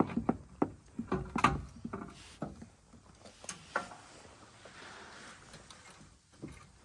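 Rubber hose being worked by hand through a tight hole in the mower's metal, giving quick irregular light knocks and rattles that thin out after about two seconds into faint scraping and rubbing.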